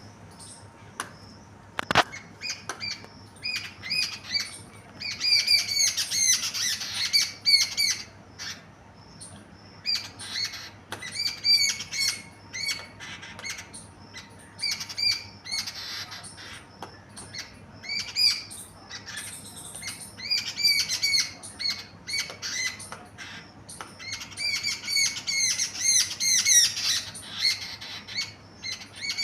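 Small birds chirping over and over in quick runs of short calls, mixed with many sharp little taps.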